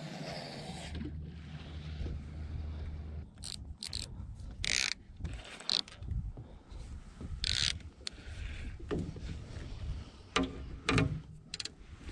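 Fishing tackle handled in an aluminum boat: scattered clicks, knocks and rustles as a baitcasting rod and reel are worked, after a low steady hum that stops about three seconds in.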